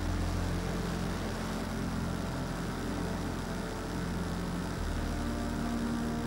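Saito FA-30 four-stroke glow engine of a radio-controlled scale model plane running steadily in flight, heard close up from an onboard camera. The engine's note shifts about five seconds in.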